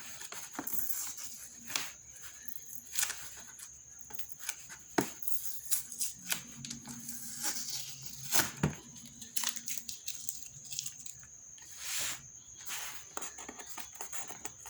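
Sticky packing tape being picked at, peeled and torn off a cardboard box, in short irregular rips and clicks. A faint steady high tone runs underneath.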